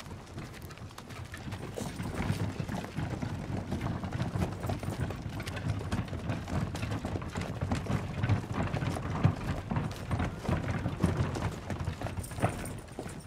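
Horse-drawn carriages on a dirt road: horses' hooves clip-clopping in quick, irregular knocks, growing louder about two seconds in.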